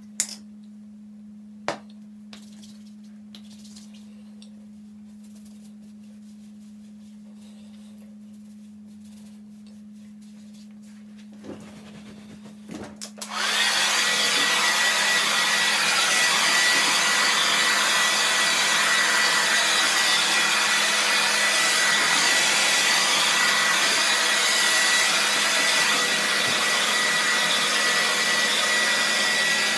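A handheld hair dryer switched on nearly halfway in and then running steadily, its rush of air carrying a thin, high whine. Before it starts there is only a low steady hum and a couple of faint clicks.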